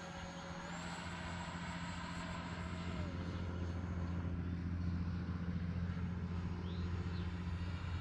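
Arrows RC MiG-29 model jet's electric ducted fan whining in flight, its pitch stepping up about a second in and back down about three seconds in as the throttle changes, then fading. A steady low rumble grows underneath.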